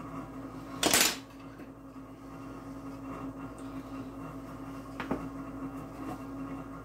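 Measuring spoon clinking against the mixing bowl as spice is tipped in: one sharp clink about a second in and a fainter one near five seconds, over a steady low hum.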